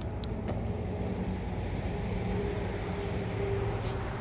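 A running machine's steady low drone, holding an even pitch, with a few faint clicks.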